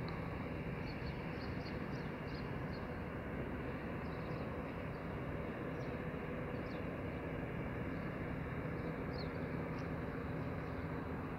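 A steady low machine hum, unchanging throughout, with short high chirps scattered through it.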